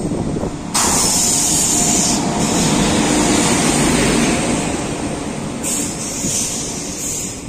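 WAG9 electric locomotive hauling a passenger train through a station without stopping: a loud rush of noise starts suddenly about a second in as the locomotive goes by, then the coaches roll past on the rails with a steady rumble and hiss that eases toward the end.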